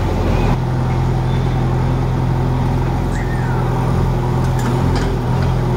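JCB 3DX backhoe loader's diesel engine running steadily under load as the backhoe arm digs and swings, with a few sharp clicks about four and five seconds in.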